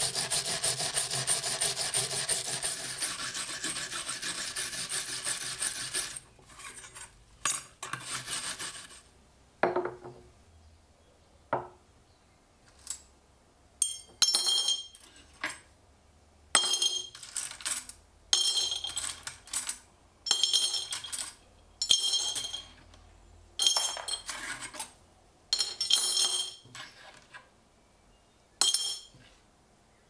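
Steel wire brush scrubbing a corroded knife-handle liner, a steady rasping. About six seconds in it stops, and the stiletto's metal parts are dropped one by one into a glass jar, about a dozen separate clinks, most with a short high ring.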